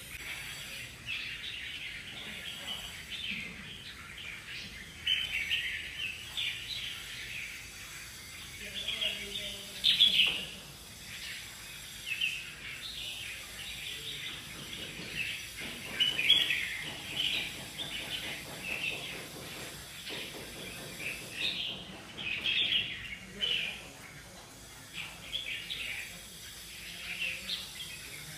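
Many caged red-whiskered bulbuls calling together, a continuous overlapping chorus of short, high chirps and whistled notes.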